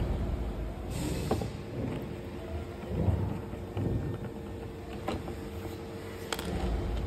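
Hand screwdriver tightening small screws into a circuit board mounted in a plastic housing: a few light clicks and scrapes over a steady low rumble.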